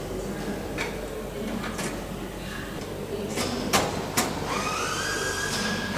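Several sharp knocks and taps on the metal airframe structure, over a steady workshop hum. About four and a half seconds in, a steady high whine starts and rises slightly in pitch.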